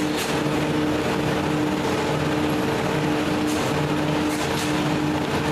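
Clay-brick making machinery running steadily as it works lumps of moist clay: a constant mechanical drone with a steady low hum.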